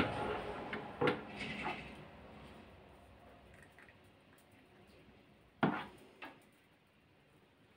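Metal spoons clinking against each other and the bowl while a soft cheese-and-egg filling is scooped and pushed into a hollowed pepper: a few light taps about a second in, then the loudest sharp clink a little past halfway with a softer one just after.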